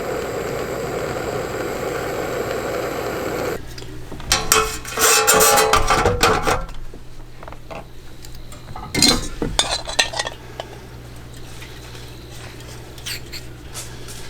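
Steady rushing noise that cuts off abruptly about three and a half seconds in, then dishes and metal utensils clinking and clattering in two bursts, a longer one from about four seconds and a shorter one around nine to ten seconds.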